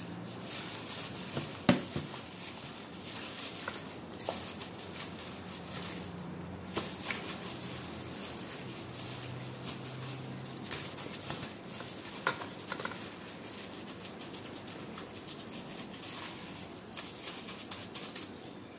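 Gloved hands working marinade into raw pork chops in a stainless steel bowl: plastic gloves crinkling and meat squishing, with small clicks and two sharp knocks on the bowl, the loudest just before two seconds in and another about twelve seconds in.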